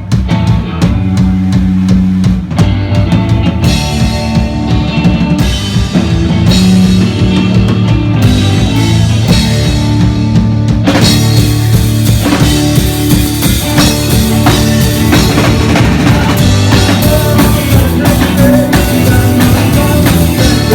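Live rock band playing loud, with drum kit, bass, guitars and keyboards; the sound grows fuller about halfway through.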